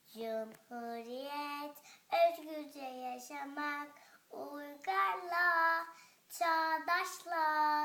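A child singing a Turkish song about the Republic unaccompanied, in phrases of held notes with short breaths between them.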